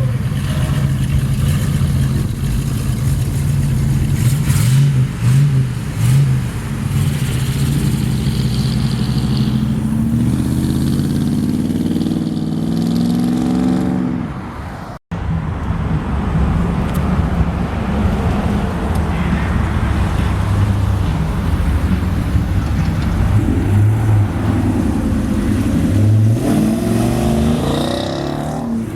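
Loud car engines running as cars pull out, with one clearly revving and pulling away in a rising pitch about halfway through, and another accelerating with rising pitch near the end. The sound drops out for an instant in the middle.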